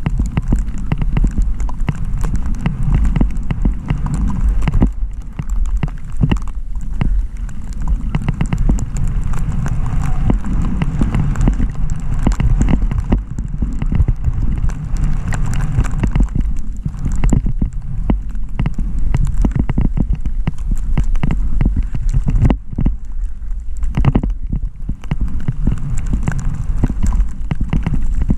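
Skis scraping and chattering over thin, rocky early-season snow, with wind rumbling on the microphone and many sharp clicks and knocks.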